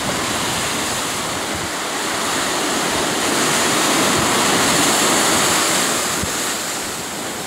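Sea surf: a steady rush of breaking waves that swells to its loudest midway and eases off toward the end.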